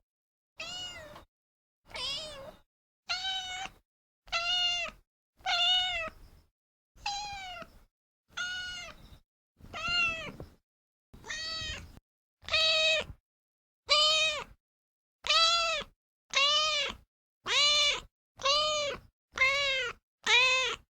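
Domestic cat meowing over and over, about one meow a second, each call rising and then falling in pitch. The meows grow louder about halfway through.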